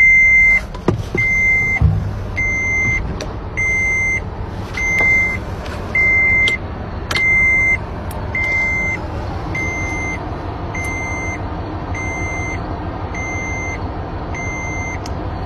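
A vehicle's electronic warning beeper sounding one high, evenly spaced beep about every second over the steady rumble of the vehicle, with a few sharp clicks.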